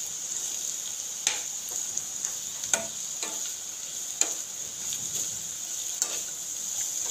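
Chopped vegetables sizzling in hot oil in a frying pan as they are stir-fried, a steady hiss, with the spatula knocking and scraping against the pan about five times.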